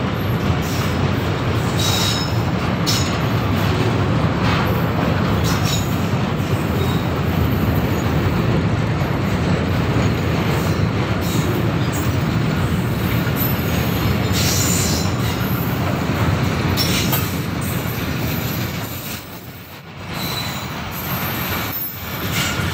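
Loaded oil tank wagons of a freight train rolling past: a steady rumble of steel wheels on rail, with brief high wheel squeals now and then. The noise dips briefly near the end, then rises again as the brake van passes.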